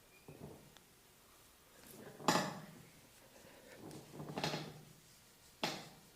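A few sharp knocks and clinks of hard objects, four in all, the second, about two seconds in, the loudest.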